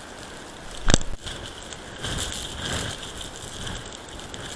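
Blizzard wind buffeting the microphone in gusts, with a single sharp knock about a second in.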